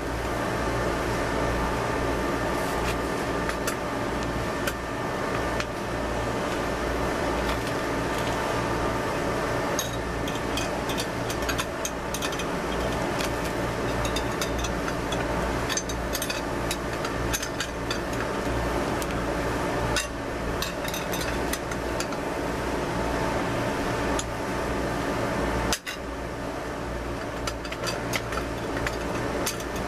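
Scattered metallic clinks and taps of an open-end wrench turning nuts on threaded steel rods bolted through a steel wheel rim, over a steady mechanical hum.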